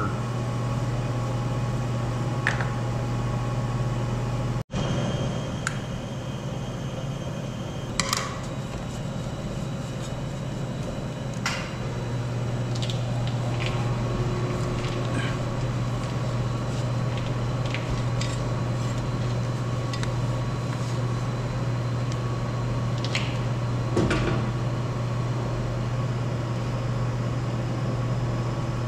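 A steady low hum of workshop machinery, with scattered clinks and taps of hand tools against metal engine parts as parts are taken off the engine.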